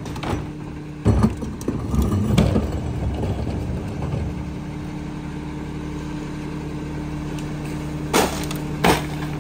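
Rear-loader garbage truck engine idling with a steady hum. Early on, a plastic wheeled trash cart clatters and knocks as it is emptied into the hopper and set down. Two sharp knocks come near the end.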